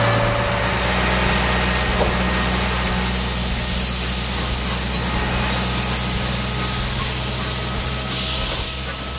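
A machine running steadily: a low, even hum with a hiss above it.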